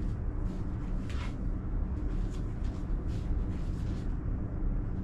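A steady low rumble, with faint brief rustles now and then.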